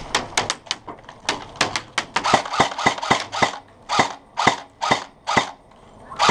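Airsoft guns firing semi-automatic shots: a quick irregular string of shots, then steady single shots at about two a second.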